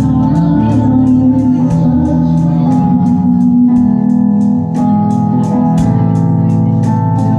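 Live band playing an instrumental passage: sustained organ-like keyboard chords that change every second or so, over a steady beat of high cymbal ticks.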